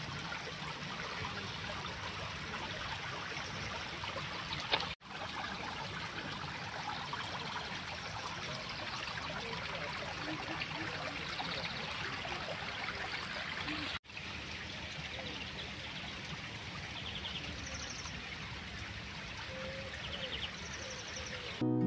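Water running and trickling steadily, as from a small garden stream or rock waterfall, broken by two short cuts. A few faint high chirps come in over it in the second half.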